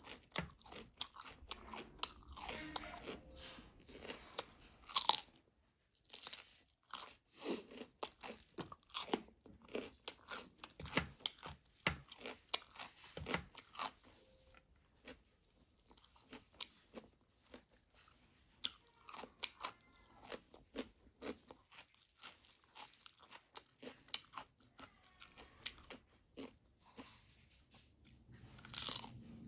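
A person eating fast: chewing and crunching food, with many irregular sharp mouth clicks and smacks, pausing briefly about six seconds in.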